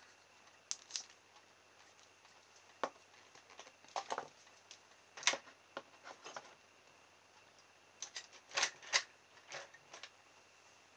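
Small wooden stick stirring two-part epoxy on a sheet of paper and dabbing it onto a small motor in a plastic frame: faint, irregular scrapes and light taps.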